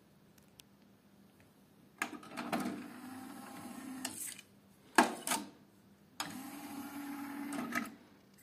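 JVC XL-V174BK CD player's disc tray motor running for about two seconds as the tray slides out. Then two sharp clacks, the first the loudest sound here, while the tray stands open, and the tray motor runs again for about two seconds as the tray slides shut, ending in a click.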